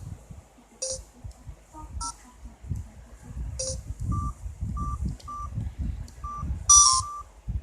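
Samsung SGH-B320 mobile phone giving short single key beeps, several a fraction of a second apart. Near the end a ringtone starts loud for about half a second and is cut off.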